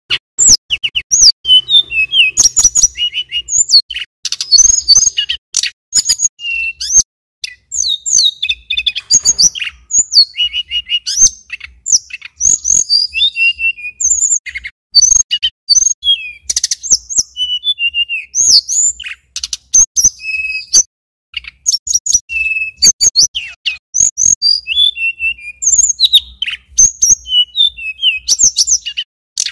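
Male tledekan gunung (sulingan gunung) singing a long, fast, unbroken run of high chirps, trills and short whistled glides, starting suddenly and pausing only briefly about two-thirds of the way through.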